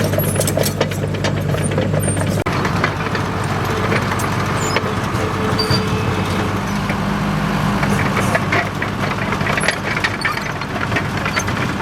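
Komatsu D37EX bulldozer's diesel engine running steadily under work, its note shifting a couple of times, with frequent short metallic clicks and clanks.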